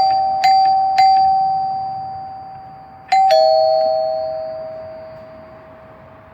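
Two-tone door chime: three quick single dings on the higher bar, then a ding-dong (higher bar, then lower) about three seconds in, which rings out slowly. This is the chime's two signals, single dings of the kind used for a rear door and a ding-dong for the front door.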